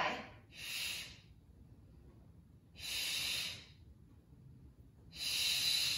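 A woman's heavy exercise breathing: three long, hissing breaths about two and a half seconds apart, paced with her leg lifts during a resistance-band bridge.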